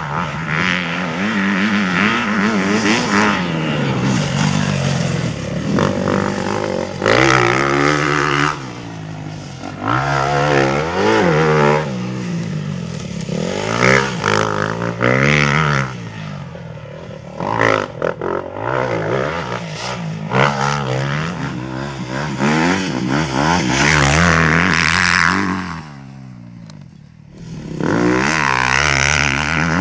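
Motocross dirt bike engine being ridden hard, revving up and dropping back over and over as the rider works the throttle and gears. It eases off briefly near the end before picking up again.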